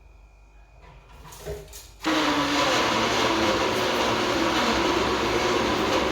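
Electric blender switched on about two seconds in and running steadily, blending the peppers.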